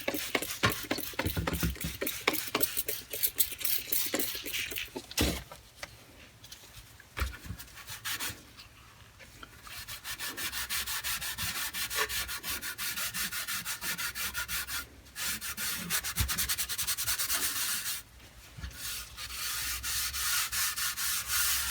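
Scrubbing grime off the metal tray of an old Craftsman toolbox by hand, in rapid back-and-forth strokes that stop briefly a few times.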